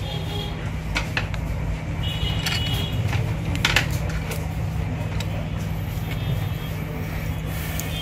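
A few light clicks and taps from handling an opened Samsung Galaxy S3's case and display connector, over a steady low background hum.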